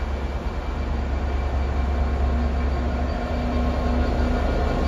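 Class 66 diesel locomotive creeping past at low speed, its EMD two-stroke V12 engine running with a deep rumble and a steady hum, growing a little louder as it draws alongside.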